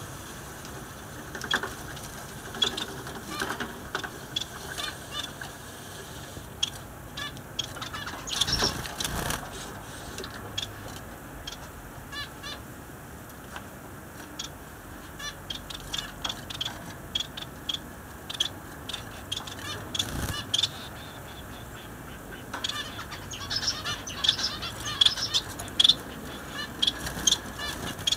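Small caged finches chirping: many short, high peeps and chips in quick scattered runs, busiest about a third of the way in and again near the end, with light clicks among them.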